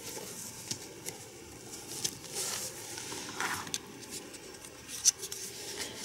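Hands handling items in a drone carrying pouch: soft rustling with scattered light clicks, swelling a little about two to three seconds in.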